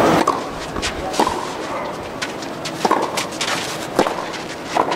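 Tennis rally: a series of sharp racket strikes on the ball, roughly a second or so apart, with lighter footstep clicks in between.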